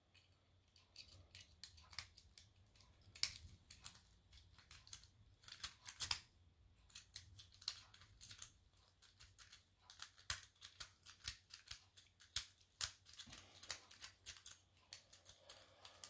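Lock picking: a half-diamond pick scraping and clicking against the pins inside a Burg Wachter Sapphire laminated steel padlock, picking the pins singly and raking. Faint, irregular metallic clicks and scratches start about a second in.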